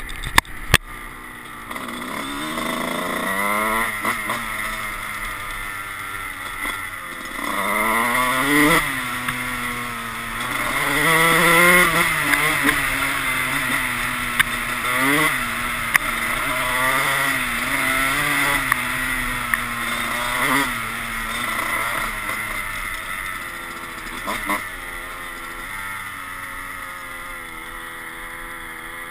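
Dirt bike engine revving up and easing off over and over as the bike is ridden along a trail, with a steady rush of noise underneath.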